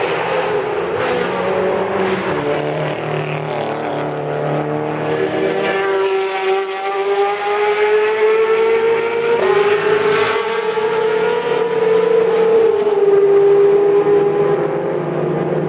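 Ferrari 458 GT3 race car's V8 engine accelerating hard at racing revs, its pitch climbing, dropping suddenly at an upshift about nine seconds in, then climbing again. Loud throughout.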